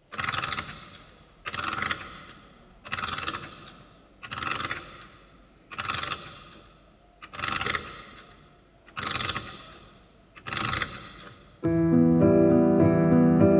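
A mechanical sound effect on the dance's recorded music track: eight evenly spaced ratcheting strokes, about one every second and a half, each dying away before the next. Piano music starts near the end.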